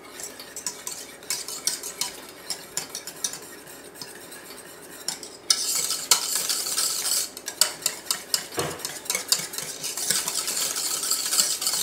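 Wire whisk beating thick pastry cream in a stainless steel saucepan, its wires clicking rapidly against the pan, as butter is whisked into the cream. About five and a half seconds in the whisking gets suddenly louder and more hissing.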